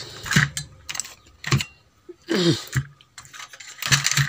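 Scattered light clicks and taps from a CRT TV circuit board being handled, broken by a few short, hesitant sounds from a man's voice.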